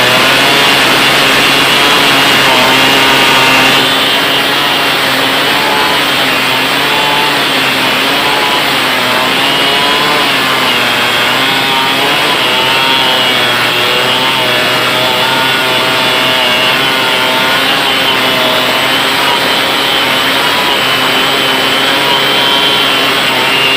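Stihl 070 two-stroke chainsaw cutting under load in a big log, running at high revs with its pitch wavering up and down as the bar bites and the engine bogs and recovers. It drops slightly in loudness about four seconds in.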